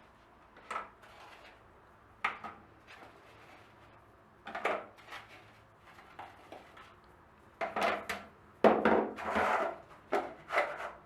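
Hard caramel candies clattering against a dish and each other as they are handled in powdered sugar, in short irregular bursts that come thicker and louder in the second half.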